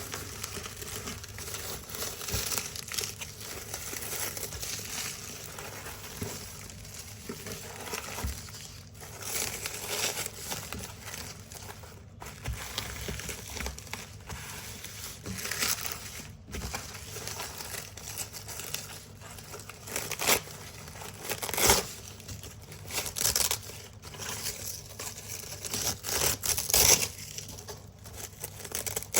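Velcro hook-and-loop strips being slowly peeled from a large black Velcro roll, a continuous crunchy, crackling rip with several louder, sharper rips about two-thirds of the way through and near the end.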